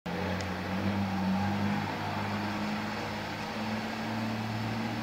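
Car engine with a straight-through exhaust (no muffler) running steadily, a low, even drone that holds nearly the same pitch.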